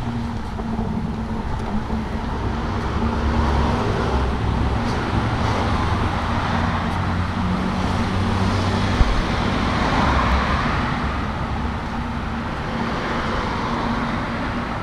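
City street traffic: cars passing one after another, their tyre and engine noise swelling and fading, over a steady low engine hum. A short knock about nine seconds in.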